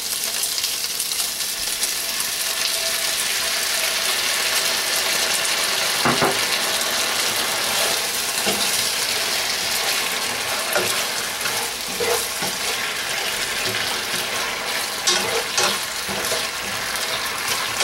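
Chicken wings sizzling in a pan as sweet chili sauce cooks down and thickens around them, a steady hiss with a few short knocks of the wings being stirred or turned.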